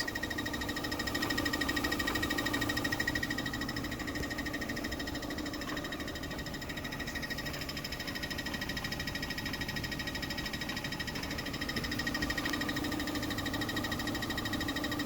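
2013 Chevy Sonic's 1.8-litre four-cylinder engine running with a steady ticking. The ticking appeared after a transmission fluid exchange; the owner thinks it comes from the transmission but wonders whether it is a lifter.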